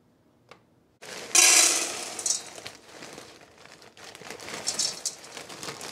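Frozen peas poured from a plastic bag into a metal saucepan: a sudden loud rush of peas about a second and a half in, then the plastic bag crinkling and a few more peas spilling in.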